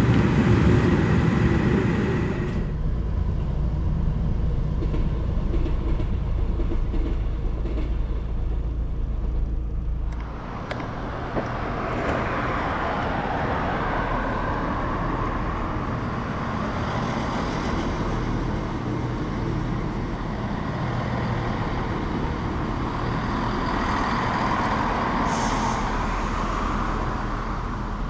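A diesel locomotive running loudly for the first couple of seconds, then a steady low hum. From about ten seconds in, a Class 170 Turbostar diesel multiple unit passes with a steady rumble of engines and wheels.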